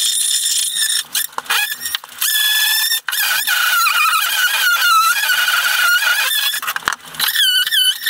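Ryobi 18V cordless power tool cutting and grinding away a boat's fibreglass inner hull liner: a loud, high whine whose pitch wavers up and down with the load, dropping out briefly a few times.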